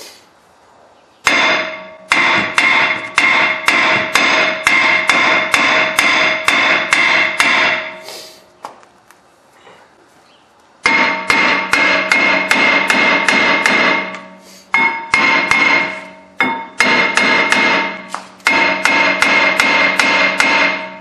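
Hammer blows on a 2007 Lexus ES 350's cast-iron front brake rotor, about three strikes a second in several runs with short pauses, the rotor ringing with each hit. The rotor is being beaten to break it loose from the hub, and it stays stuck.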